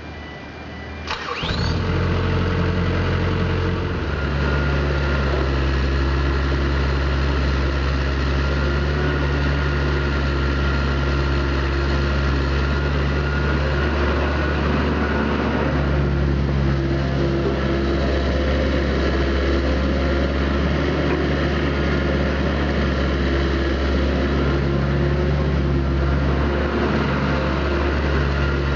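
Kubota KX251 midi excavator's diesel engine starting about a second in, then running steadily; its note shifts about four seconds in and then holds.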